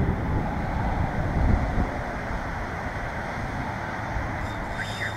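Wind buffeting the microphone: a steady rushing noise with gusty low rumble, strongest in the first two seconds.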